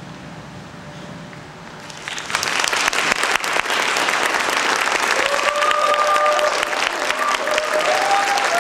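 Theatre audience applauding at the end of a dance performance. The clapping breaks out about two seconds in after a low hiss of room tone, and a few high cheering calls rise over it from about five seconds in.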